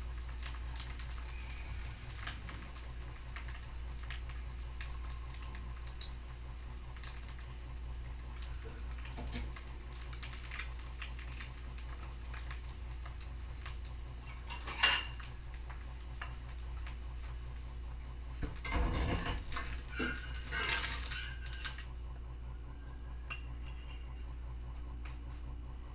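Egg frying in oil in a small Sori Yanagi cast-iron pan: a steady fine sizzle and crackle. A sharp metal clink of the stainless spatula on the pan comes about fifteen seconds in, and a scraping clatter around nineteen to twenty-one seconds as the egg is worked loose and slid out. The sizzle drops away near the end.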